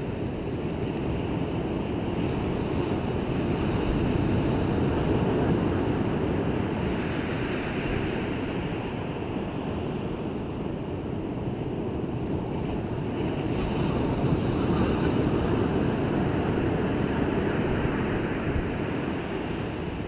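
Sea waves washing in, a steady rushing noise that swells twice, about ten seconds apart.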